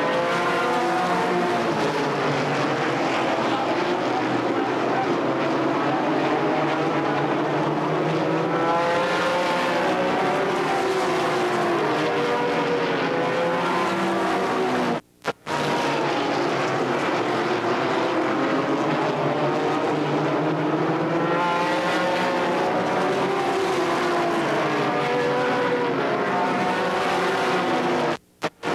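ARCA stock cars' V8 engines racing on an oval track, several engines at once rising and falling in pitch as the pack goes by and around the turns. The sound cuts out briefly twice, about halfway through and just before the end.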